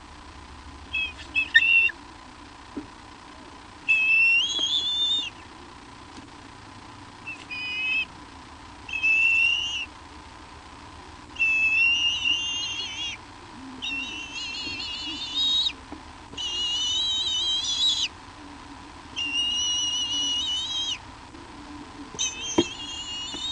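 A bird's high, wavering whistled calls, about nine in a row. The first are short; the later ones are drawn out to a second or two each, with brief gaps between them. A faint steady tone sits beneath them.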